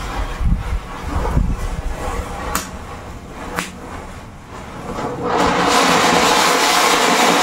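A couple of sharp clicks, then about five seconds in a loud rushing fizz sets in and holds steady: burning pyrotechnic composition flaring up.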